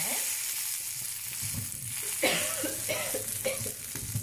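Oil sizzling steadily in a stainless steel pan with frying shallots, garlic, coriander seeds and a lump of tamarind. A short voice-like sound comes about two seconds in.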